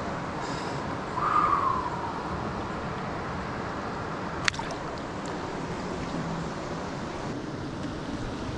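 Steady rushing of a stream running over rocks, with a louder swish lasting about a second near the start and a single sharp click about halfway through.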